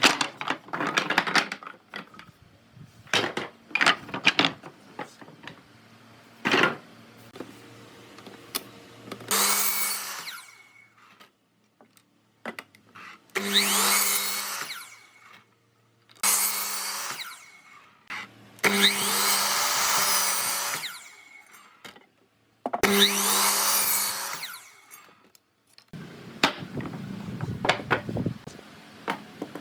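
Power tool working wood in five short runs of one to two seconds each, with sharp knocks of wood before them and a lower rasping noise near the end.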